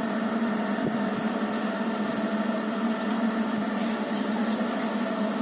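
Steady mechanical hum of a ventilation exhaust fan, even and unchanging, with a low drone as its strongest part.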